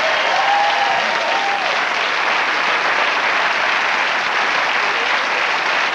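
Studio audience applauding steadily, with a voice briefly heard over it in the first second or so.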